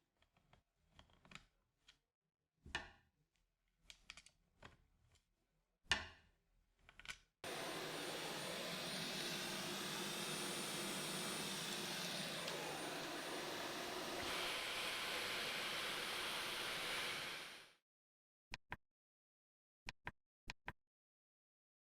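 Dyson cordless stick vacuum's motor running steadily for about ten seconds, its sound shifting partway through, then spinning down. Short knocks of handling come before it, and a few sharp clicks follow.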